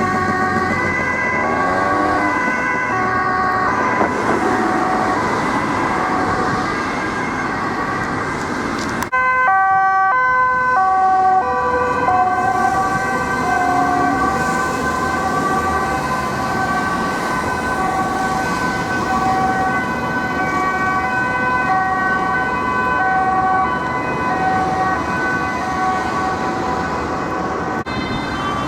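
Dutch police two-tone sirens, alternating between a high and a low note about once a second, over vehicle and road noise. About nine seconds in, it cuts to a second, louder two-tone siren.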